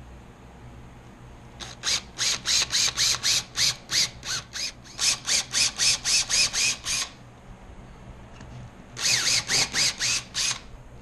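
Power drill run in quick trigger pulses, about four a second, each a short whine that rises and falls, drilling holes in a wall for anchors. A long run of about twenty pulses is followed, after a pause, by about six more near the end.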